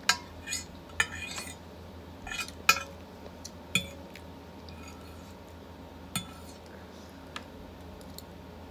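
Metal fork scraping and clinking against a large, nearly empty plate: a handful of short, sharp clinks and scrapes scattered over several seconds.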